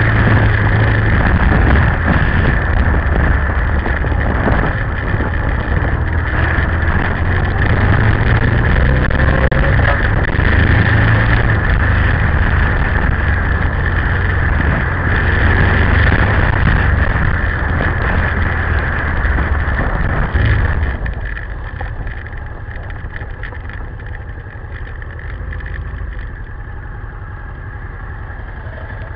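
Honda Transalp V-twin motorcycle engine running under way, with wind and tyre noise on gravel. About two-thirds of the way through it drops to a quieter idle as the bike stops.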